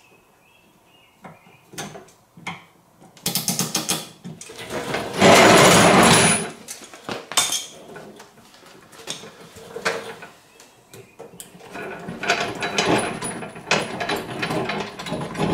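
A hose clamp on the sprayer's boom hose being tightened down by hand tool, heard as scattered clicks and runs of rapid clicking. A louder burst of noise about five seconds in lasts a second and a half.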